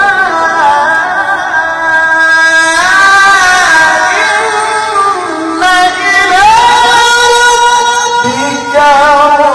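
A man's voice in melodic Qur'an recitation (tilawah), drawing out long held notes with ornamented turns. The pitch steps to new notes a few times, with short breaths between the phrases.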